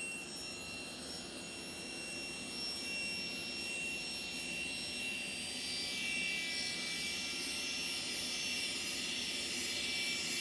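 SawStop Industrial Series cabinet saw and shop dust collector running steadily with a high whine. The spinning blade is being raised up through a linen micarta zero-clearance throat plate, cutting its slot, and the hiss grows louder from about halfway through as the blade comes through the plate.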